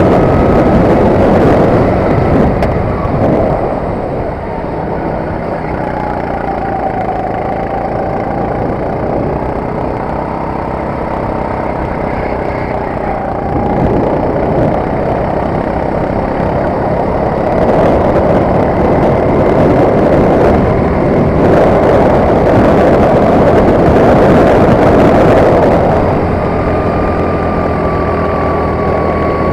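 Sodi RT8 kart's four-stroke engine running hard on a flying lap, heard from onboard. The engine note drops about four seconds in, builds again from about fourteen seconds and falls back near the end as the kart slows for corners and accelerates out of them.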